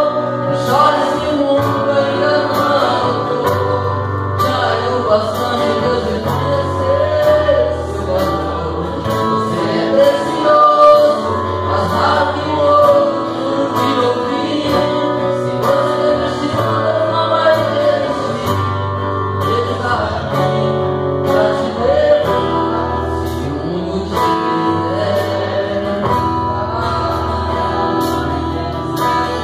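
A man singing a gospel song live into a microphone, backed by acoustic guitar, a drum kit with a steady beat, and keyboard.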